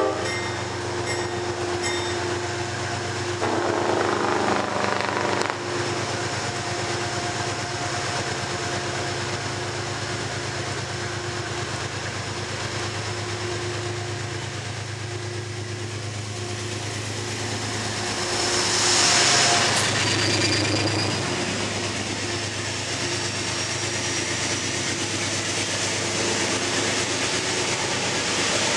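Metro-North GE P32AC-DM diesel locomotive's V16 engine running steadily as it pulls Shoreliner coaches into the platform, the coaches then rolling past. There is a loud burst of hiss about two-thirds of the way through.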